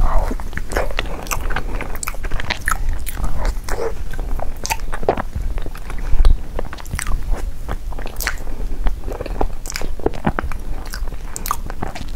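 Close-miked biting and chewing of a chocolate dessert: many short, crisp crunches and mouth clicks, spaced unevenly.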